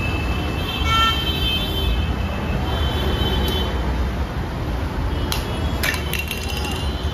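Busy road traffic: a steady rumble of passing vehicles, with horns sounding for a few seconds starting about a second in. A few sharp clicks come near the end.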